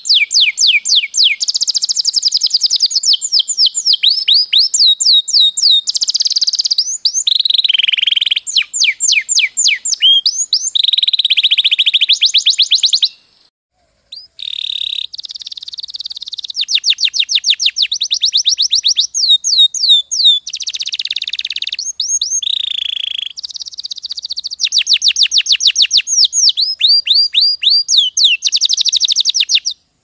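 Domestic canaries singing a long rolling song of rapid trills. Each phrase is a quick run of the same falling note repeated, and the bird moves to a new phrase every second or two. The song stops briefly about 13 seconds in, then picks up again.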